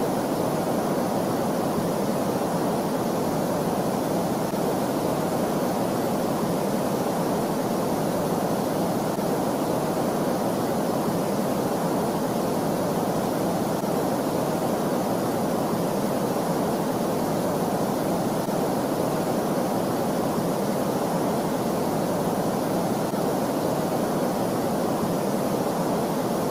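Steady, even rushing noise with no tones or rhythm, its weight in the low-middle range under a fainter hiss. It is the 'space sound' played for Pluto's moon Charon: a sonification, not a sound carried through space.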